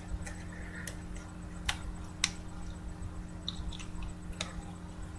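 About half a dozen light, scattered clicks and taps over a steady low electrical hum.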